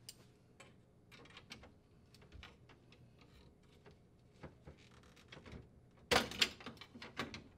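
Plastic crisper drawer support bracket clicking and rattling against a refrigerator's metal slide rail as it is pried off with pliers and a screwdriver. Scattered clicks, then a louder burst of clatter about six seconds in.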